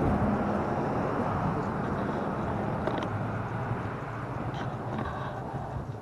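Outdoor street ambience: a steady rushing noise that is loudest at the start and eases off gradually, with a few faint ticks near the end.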